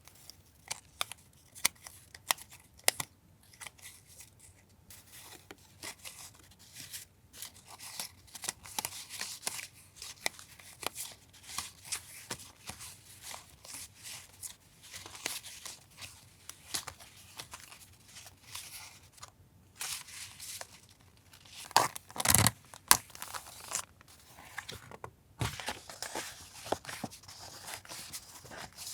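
Paper and plastic packaging being handled by hand: crinkling, rustling and light taps as paper journaling supplies are unwrapped and sorted, with a louder flurry of rustling a little over two-thirds through.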